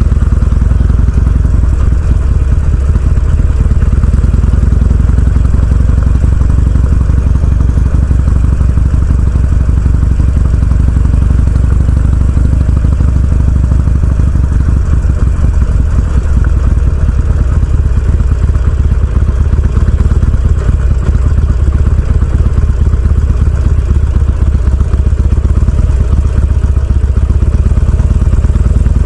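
Harley-Davidson Sportster's air-cooled V-twin engine running steadily and loud, with a strong low rumble.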